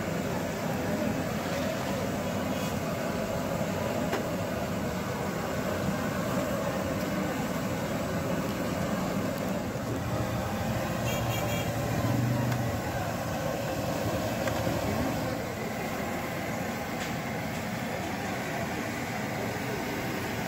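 Busy street ambience: steady traffic noise from passing vehicles, with a louder vehicle going by a little past twelve seconds in and a brief high beep shortly before it.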